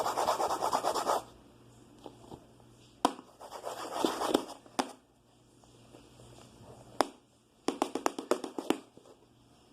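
Fast, rhythmic scratching as a container of detergent and water is worked to whip it into foam; it stops about a second in. After that come scattered taps and short runs of clicks from handling the container.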